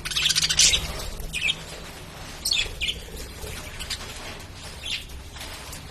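Pet lovebirds chirping: a quick run of shrill chirps in the first second, then single sharp chirps every second or so, over a low steady hum.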